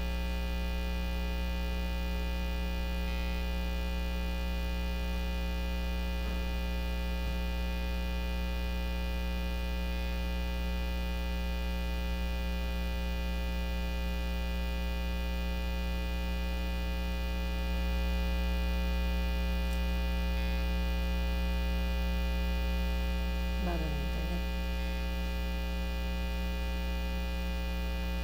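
Steady electrical mains hum with a dense stack of overtones, picked up by the recording chain. A brief faint wavering pitched sound comes in near the end.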